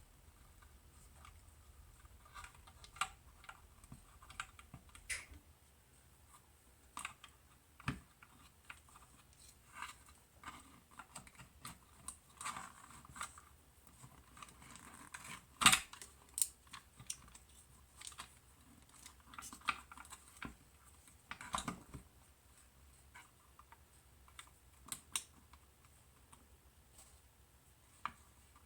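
Irregular light clicks and taps of small parts and tools being handled on a workbench while a soldering station is put back together, with one sharper click a little past halfway.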